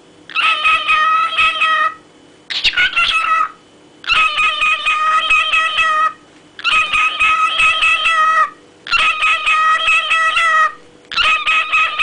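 Grey cockatiel singing, repeating a whistled phrase six times with short pauses between. Most phrases are held, slightly warbling notes of about two seconds; a shorter one about two and a half seconds in glides upward.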